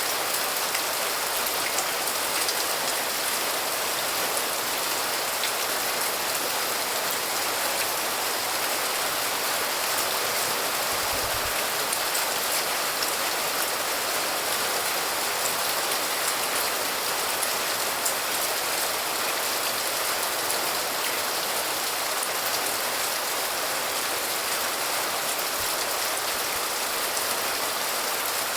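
Steady rain falling, an even hiss with the fine patter of individual drops throughout.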